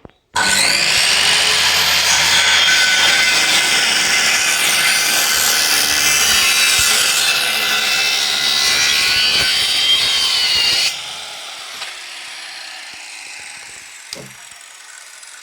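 Boda electric circular saw running loud with a high-pitched, wavering whine for about ten seconds. It then drops off sharply and fades as the blade spins down.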